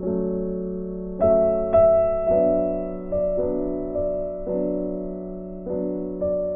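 Background music: sustained keyboard chords, a new chord struck every second or so.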